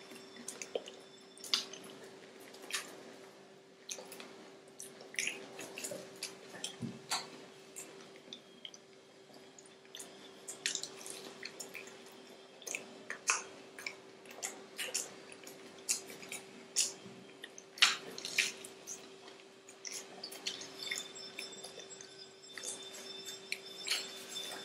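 Close-up mouth sounds of people chewing breaded chicken cheese rolls: irregular wet clicks and smacks. A faint steady hum runs underneath.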